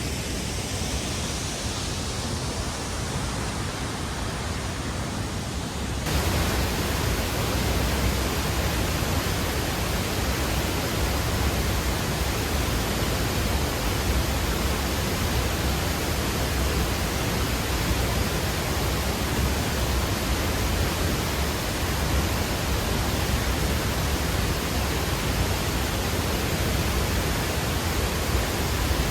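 Waterfall's falling water: a steady, dense rush that steps up abruptly and becomes louder and fuller about six seconds in.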